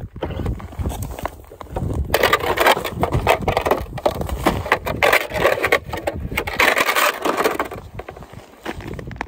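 Winter boots crunching and scraping on snow-covered ice right beside the microphone, an irregular run of crunches that is busiest from about two seconds in until about seven seconds in.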